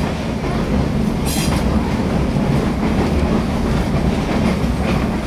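Passenger train running along the track: a steady low rumble of the wheels on the rails, with a short high hiss about a second in.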